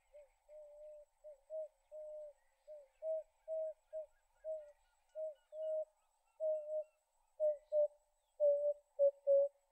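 Emerald-spotted wood dove singing: a series of low, soft coos, spaced and hesitant at first, then growing louder and coming faster and shorter near the end as the song speeds into its run.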